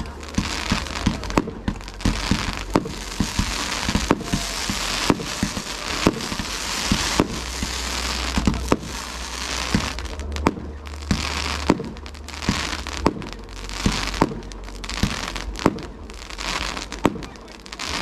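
Fireworks going off: a rapid, irregular run of sharp bangs, several a second, over continuous crackling.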